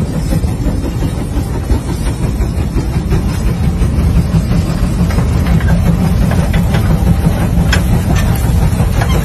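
Steam traction engine working under heavy load, pulling a many-bottom John Deere gang plow through sod: a steady, heavy rumble. Short clicks and knocks from the plow come in from about five seconds in.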